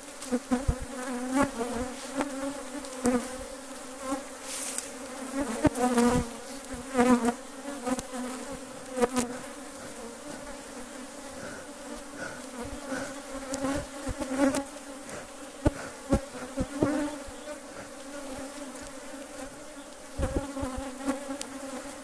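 Agitated honeybees buzzing around an opened hive in a steady, dense hum; the bees are defensive and attacking. Scattered knocks and clicks run through it, and about 20 seconds in comes a louder puffing from a bee smoker.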